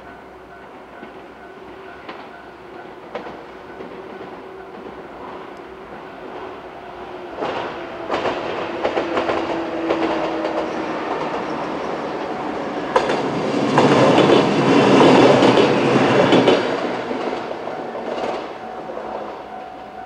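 JR 103-series two-car electric train approaching and passing, its wheels clacking over the rail joints. The sound builds from about a third of the way in to its loudest about two-thirds in, then fades. Steady tones from the level-crossing warning bell ring underneath.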